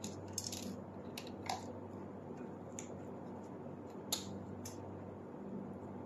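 Light metallic clicks and taps at irregular intervals as a screwdriver works the terminal block and fuse-holder screws of an FCU control panel, the loudest a little after four seconds, over a faint steady low hum.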